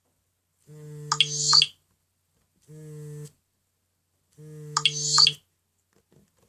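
Nokia N97 Mini ringing with vibration on. The vibration motor buzzes low in three pulses, each about half a second to a second long and roughly two seconds apart. A short, bright synthesized ringtone phrase sounds loudest over the first and third buzzes.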